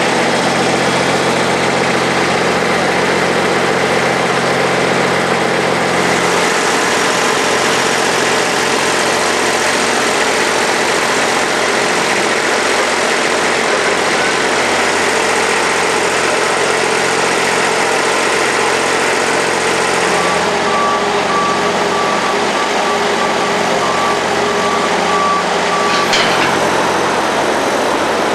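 Vehicle engines idling under a loud, steady background noise, with low hum tones that shift about six seconds in. A quick run of high beeps comes about twenty seconds in, typical of a reversing alarm.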